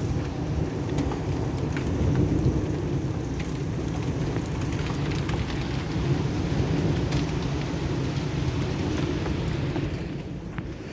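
Heavy thunderstorm rain pouring down with a deep rumble underneath and scattered sharp ticks of impacts; it eases a little near the end.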